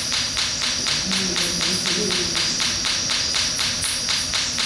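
Ghost box sweeping through radio stations: rhythmic bursts of static, about four to five a second, with a faint snatch of a voice about a second in.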